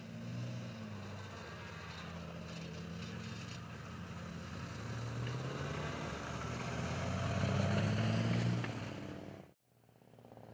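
Tracked armoured vehicles, a CV90 infantry fighting vehicle and a Leopard 2 tank, driving past with their diesel engines running in a low drone. The engine note rises and is loudest as one passes close, then cuts off suddenly near the end, and a quieter engine sound continues.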